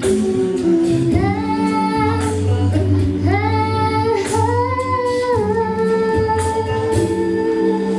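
A vocal group singing a Chinese pop song in harmony, a female lead voice holding long notes over steady lower voices.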